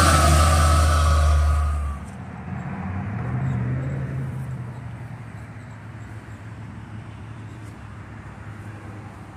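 A school bus passes close by, its engine running with a high whine, cut off abruptly about two seconds in; then a vintage sedan's engine runs quietly at low speed as it creeps toward the camera.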